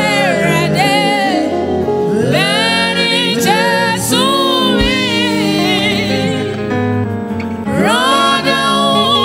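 A woman singing a gospel praise song live into a microphone, with long wavering held notes, over a steady instrumental backing.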